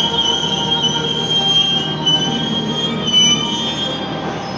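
A stainless-steel KAI passenger train rolling slowly along a station platform, with a steady high-pitched squeal from its wheels over a continuous rumble.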